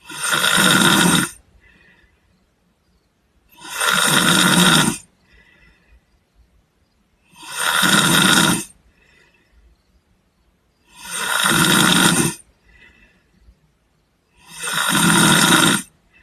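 A man snoring in his sleep: five loud snores, one about every three and a half seconds, each lasting just over a second, with a much softer sound between them.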